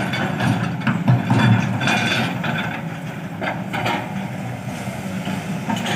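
Kobelco crawler excavator's diesel engine running steadily as the arm and bucket move, with irregular clanks and rattles over the low engine note.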